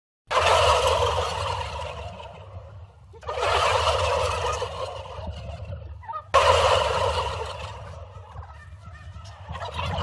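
Turkey gobbling three times, about three seconds apart. Each gobble starts loud and trails off.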